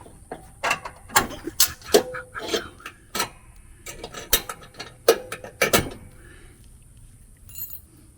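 Irregular metal clicks and clanks of hand tools on mower-deck hardware, as the retaining clips holding a riding mower's deck are worked off with pliers. They fall off about six seconds in.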